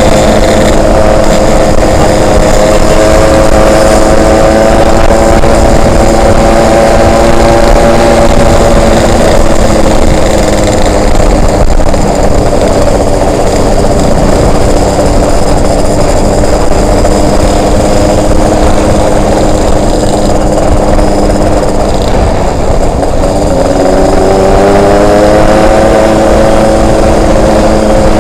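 Yamaha RX-King's two-stroke single-cylinder engine running as the bike is ridden, with heavy wind rushing over the microphone. The revs hold steady, then ease off slowly through the middle, and rise again a little after three quarters of the way in.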